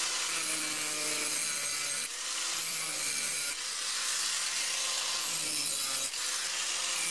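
Corded angle grinder running steadily; near the end its cut-off disc is set into a thick steel plate to cut an opening.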